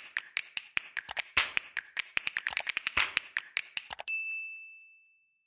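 Typewriter sound effect: a quick, irregular run of key clacks, then a single bell ding about four seconds in that rings and fades away.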